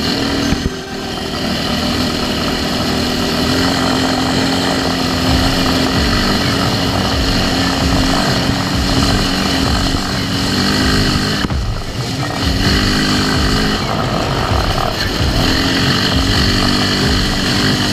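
ATV engine running hard at speed over a gravel track, its note shifting up and down with the throttle and briefly dipping about two-thirds of the way through.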